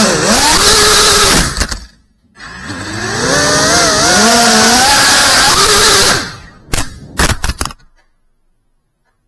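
FPV freestyle quadcopter's motors and propellers whining, pitch rising and falling with the throttle in two long bursts, then a few short sharp knocks about seven seconds in before it falls silent.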